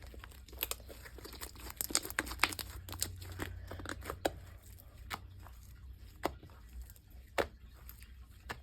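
Fluffy slime being squeezed and stretched by hand, giving off many small sharp pops and crackles, thick and fast for the first four seconds or so, then a few louder single pops.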